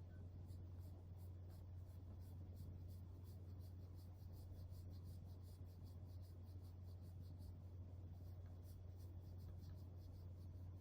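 Faint, rhythmic scratchy strokes, about three or four a second, over a steady low hum.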